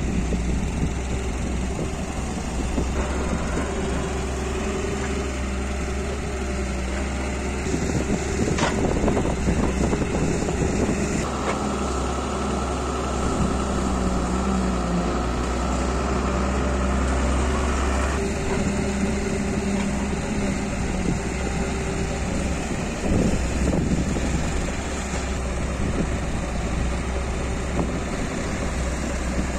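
Diesel engines of a Doosan wheeled excavator and a Belarus tractor running, with the engine note shifting as the excavator works. A steady higher whine runs from about eleven to eighteen seconds in, and there is a single knock about nine seconds in.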